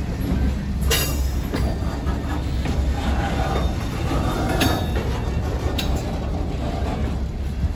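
Loaded centerbeam flatcars of a freight train rolling slowly past: a steady low rumble of steel wheels on rail, with a few sharp knocks.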